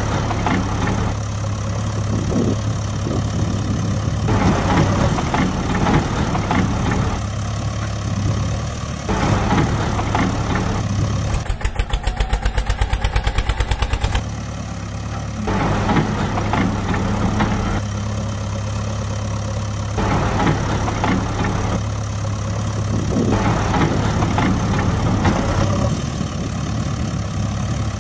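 Vehicle engine idling steadily. About eleven seconds in it changes for about three seconds to a rapid, even pulsing, several beats a second, then returns to the steady idle.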